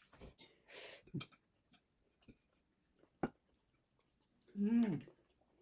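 A person eating at close range: soft chewing and mouth noises, with one sharp click about three seconds in. Near the end comes a short voiced hum.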